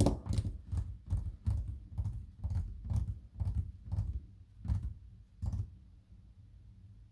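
A run of light, irregular clicks and taps, about two or three a second, from small hard objects being handled on a desk; they stop about five and a half seconds in.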